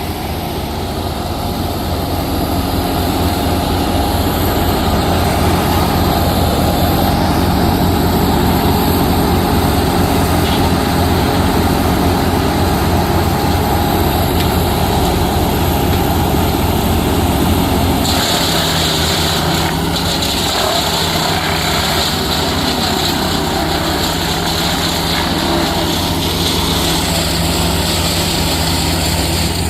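A large engine running steadily throughout; about 18 seconds in its note changes, the deep rumble easing off to a steadier hum with more hiss above it.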